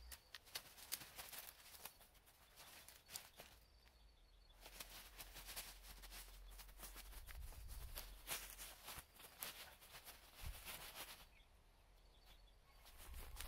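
Near silence: faint, irregular clicks and rustles over a low rumble, with no chainsaw running.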